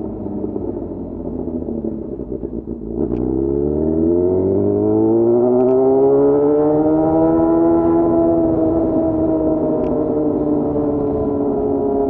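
Yamaha FZ6's inline-four engine running low for a few seconds, then accelerating with a smooth rising pitch for about five seconds before levelling off and easing slightly.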